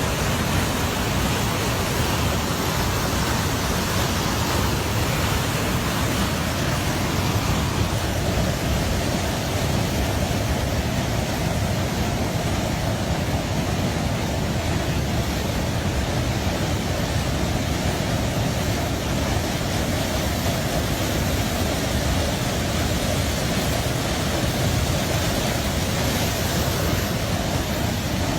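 Steady rushing roar of a tall waterfall, the Basaseachi falls, an even unbroken noise with no let-up.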